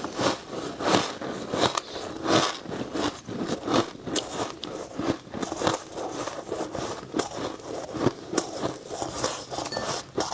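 A person biting and chewing humidifier frost: a run of irregular crisp crunches, about one or two a second.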